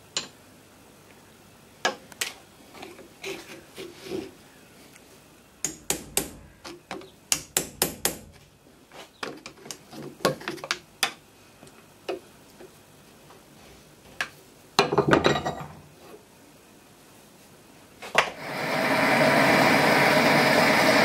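Metal clinks and knocks of tools and parts of a brass artillery fuse being worked in a steel bench vise, with a louder clatter about three quarters of the way through. Near the end a gas blowtorch is lit and burns steadily.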